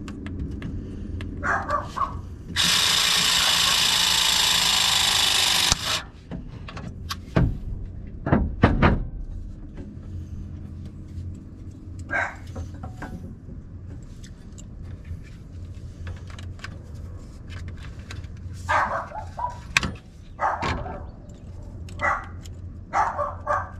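Battery-powered press tool (B-press gun) running steadily for about three seconds as it crimps a copper press joiner onto the pipe, then stopping abruptly. A few sharp knocks follow as the tool is handled on the pipe.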